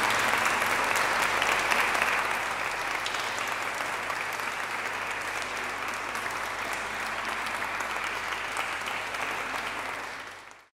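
A small audience applauding, loudest in the first couple of seconds, then steady and a little quieter, fading out near the end.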